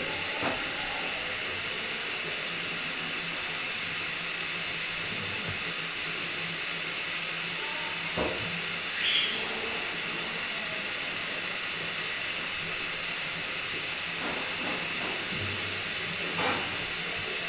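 Two lidded pots, one of chickpeas and one of a potato, boiling on a lit gas stove: a steady hiss of burner flame and steam, with a few faint knocks about eight seconds in and near the end.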